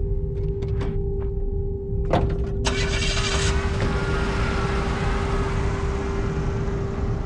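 A door bangs shut about two seconds in. Then an old pickup truck pulls away on a sandy dirt track, its tyres spraying sand and its engine running on, under a steady held musical drone.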